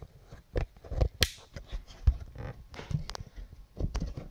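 Irregular sharp clicks and knocks of things being handled, about a dozen in four seconds, the sharpest about a second in.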